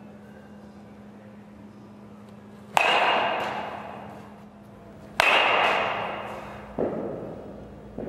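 Metal baseball bat striking balls twice, about two and a half seconds apart. Each crack rings with a high ping that fades over about two seconds. Two softer knocks follow near the end, over a steady low hum.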